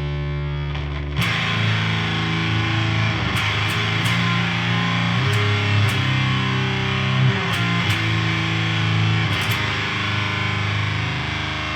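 Electric guitar through a tube amp playing low, sustained chords; about a second in the tone turns abruptly into a much brighter, heavy HM-2-style distortion from the Siren Pedals Eligos, with chord changes every second or so.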